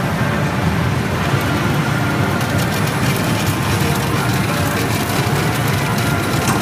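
Loud, steady din of a pachinko parlor: the massed sound of many pachislot and pachinko machines running at once, with fine rapid clicking joining in a couple of seconds in.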